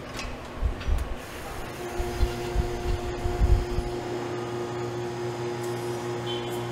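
Truck assembly plant floor noise: irregular low knocks and clunks for the first four seconds or so, with a steady machine hum coming in about two seconds in and running on after the knocks stop.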